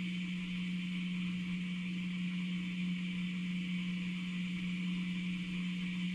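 Steady electrical hum with a constant hiss underneath; it holds one unchanging low tone throughout, with no distinct events.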